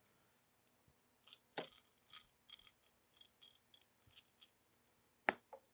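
Small metal screws and T-nuts clinking and clicking as they are handled and threaded together by hand: a run of about a dozen light, tinkling clicks from just over a second in, then one sharper click near the end.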